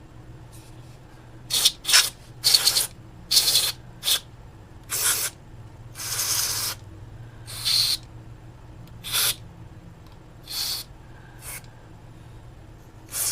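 About a dozen short, irregularly spaced bursts of hiss, each lasting well under a second.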